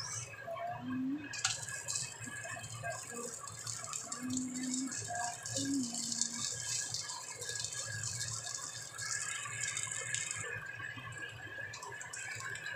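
Scallion pancake frying in hot oil in a nonstick wok: a dense sizzle and crackle that swells about a second and a half in and eases off near the end, as the pancake is pressed and turned with a spatula.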